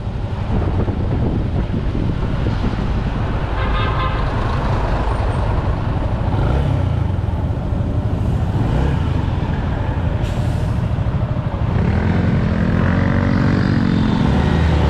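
Traffic noise heard from a moving Yamaha motor scooter: steady engine, road and wind rumble, with a short horn toot about four seconds in. Near the end an engine's pitch rises and falls as the traffic slows.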